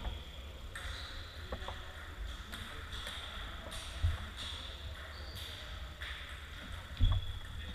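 Table tennis rally: a ping-pong ball clicking off bats and the table in scattered short pops, with a couple of louder low thumps about halfway through and near the end.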